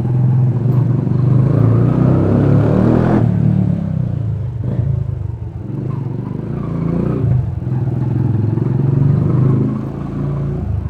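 Yamaha YBR 125G's single-cylinder engine running through a short aftermarket exhaust while riding off, revs rising, dropping sharply about three seconds in as the throttle is eased for a gear change, then rising and falling again.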